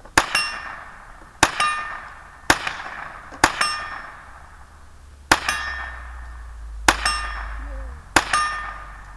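Seven sharp metallic clangs in about eight seconds, each ringing briefly at a few fixed pitches, spaced unevenly about one to two seconds apart: metal being struck repeatedly.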